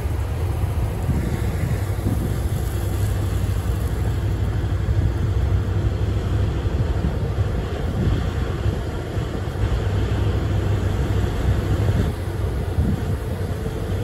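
Diesel engines of a Gleaner combine and a tractor pulling a grain cart running steadily side by side as the combine unloads wheat on the go, with wind rumbling on the microphone.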